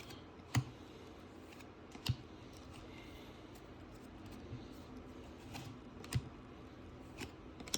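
Trading cards being handled and flipped through: a few sharp clicks and taps of card on card, three of them louder than the rest, over a faint rustle.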